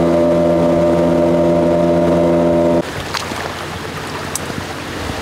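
Boat motor running at a steady speed, cut off abruptly about three seconds in. Rain hiss and a few light taps follow.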